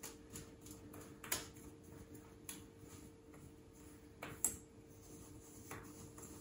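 Faint, scattered clicks and light scrapes of a small metal spatula against a metal cake ring and a biscuit-crumb base as it is pressed flat, the loudest click about four and a half seconds in. A faint steady hum sits underneath.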